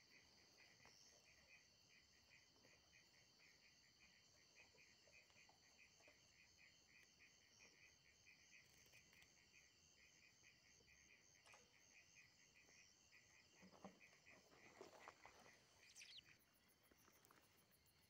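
Faint night chorus of calling insects: an even chirp repeating about two to three times a second over a steady high trill. A few brief rustles and knocks come about two-thirds of the way through.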